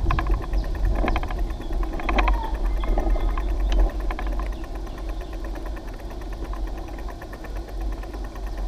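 Wind buffeting and road rumble picked up by a bike-mounted action camera on a mountain bike riding a paved road. A few rattling knocks come in the first four seconds.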